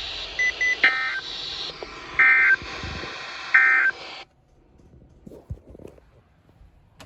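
Emergency Alert System end-of-message data bursts: three short two-tone warbling digital bursts, about a second and a half apart, over radio hiss. The hiss cuts off suddenly about four seconds in, as the alert transmission closes.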